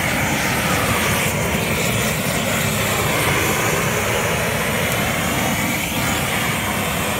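Handheld LPG blowtorch burning with a steady rushing hiss of gas and flame, singeing the hair off a slaughtered pig's ear and head.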